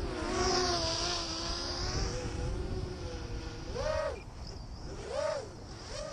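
Small FPV quadcopter's electric motors and propellers whining, the pitch wavering and then rising and falling in three quick throttle bursts in the second half. Wind rumbles on the microphone underneath.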